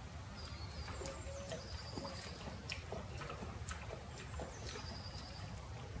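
Lioness lapping water with her tongue: a series of quick, irregular wet clicks. Birds whistle in the background over a low steady rumble.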